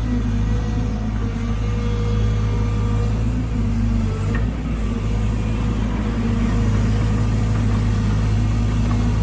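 Diesel engine of a Caterpillar 313GC excavator running steadily at working speed, a constant low drone with a faint higher steady tone over it.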